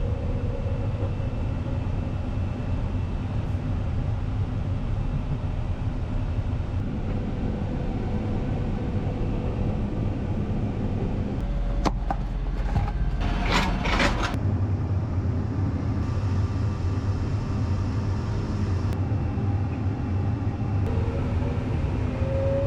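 Diesel engine of harvest farm machinery running steadily. About halfway through there is a short cluster of clicks and rattling.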